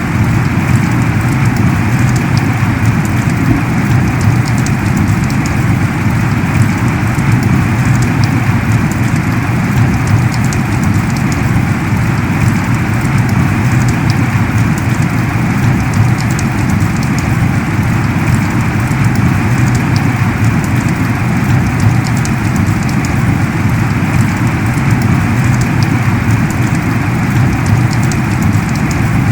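Heavy rain falling steadily, a dense, even downpour with scattered drop ticks.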